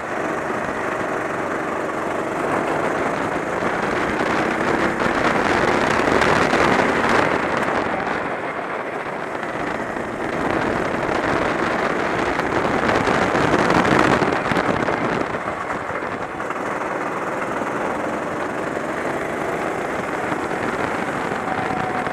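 Kart engine running flat out on an onboard microphone, its pitch rising and falling as the kart accelerates and brakes through corners, under heavy wind rush. It is loudest about a third of the way in and again just past halfway.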